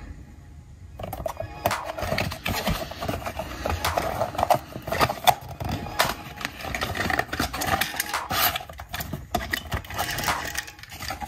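Handling noise: a dense run of clicks, taps and rustles, starting about a second in, as packaging and diecast model cars are handled.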